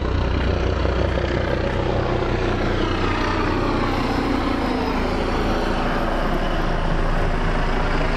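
Helicopter flying by: a loud, steady drone of rotor and engine.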